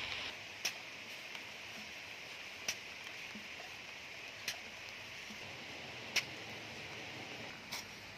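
Water dripping after rain: five sharp drip ticks, one about every two seconds, over a faint steady hiss of wet outdoor ambience.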